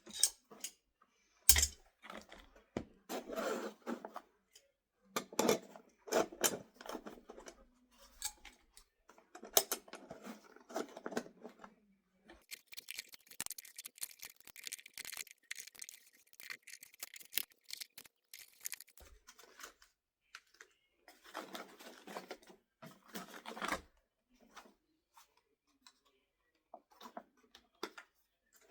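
Hand tools and a fabric tool backpack being handled: scattered clicks and knocks of tools, with rustling and scraping bursts as things are slipped into pouches, including a longer scratchy stretch about halfway through.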